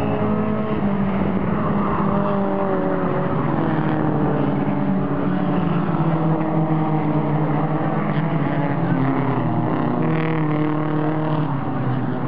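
Several mini stock race car engines running hard together on a short oval track. Their overlapping engine notes rise and fall as the cars lap.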